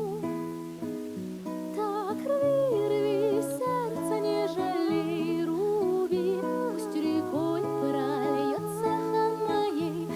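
Song music: a wavering melody line with vibrato over held low accompaniment notes, with no sung words.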